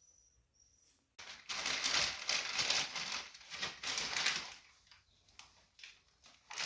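Irregular rustling and crinkling handling noise, starting about a second in and coming in uneven bursts.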